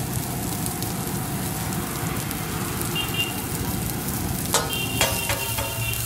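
Shredded cabbage and green capsicum sizzling on a hot flat griddle. About four and a half seconds in, a steel spatula starts clanking and scraping on the griddle as the vegetables are stirred.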